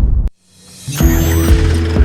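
Background music: a loud rumbling whoosh cuts off abruptly, and after a brief gap an electronic track with held tones, sweeping glides and a steady beat fades in.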